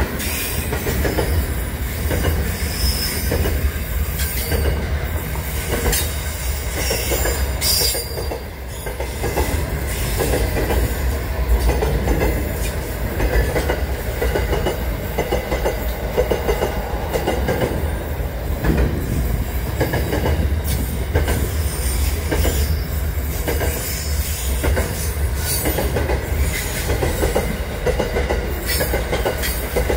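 Freight train wagons rolling steadily past close by: continuous rumble of wheels on rails with rapid clatter over the rail joints and occasional high-pitched wheel squeal.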